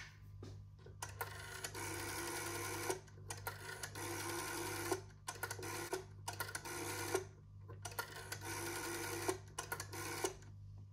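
Rotary-dial telephone being dialled: the finger dial is wound round and whirs back with its pulse clicks, digit after digit, several times over, each return lasting up to a second or so.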